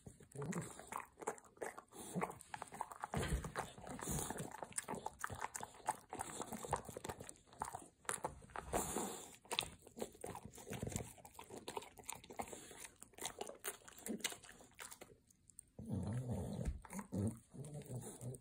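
English bulldog gnawing on a hard bone-shaped dog biscuit: irregular crunches and chewing, with a short lull about fifteen seconds in.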